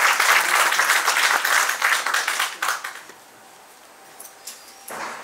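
Audience applauding, the clapping fading out about three seconds in; a brief knock near the end.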